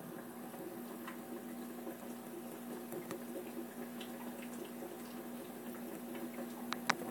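Steady hum of aquarium equipment with water gently bubbling and trickling, a few faint clicks, and two sharper ticks near the end.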